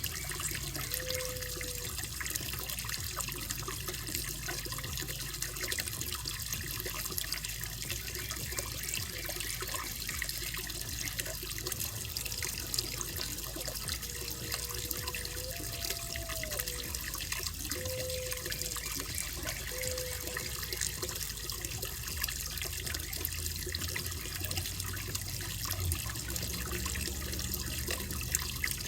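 Steady running water trickling and splashing into a koi pond.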